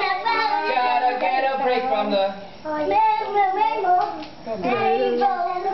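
Several children's voices singing and chattering together, with two brief pauses.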